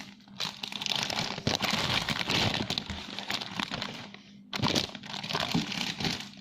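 Crinkling and rustling from squishy toys being handled, in two long stretches with a short lull about four seconds in.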